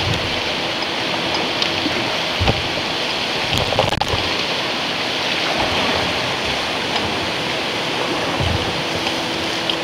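River water rushing steadily over a low weir beside a bamboo waterwheel, heard from a kayak. A few low knocks come through the rush, about two and a half, four and eight and a half seconds in.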